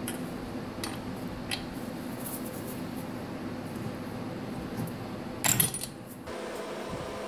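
Metal clinks of a spark plug wrench working the spark plug out of a Husqvarna 450 chainsaw engine, a few light clicks, then a louder metallic clatter about five and a half seconds in, over a steady low hum.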